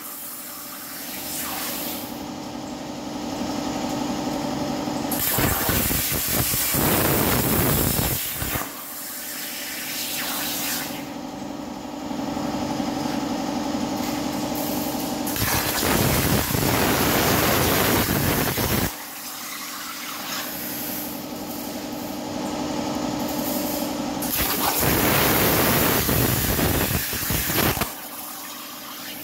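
CNC plasma cutter torch hissing loudly as its arc cuts steel plate, with a steady hum underneath. The hiss drops away briefly near the start, about eight seconds in, about nineteen seconds in and near the end, as the arc goes out between cuts and then restarts.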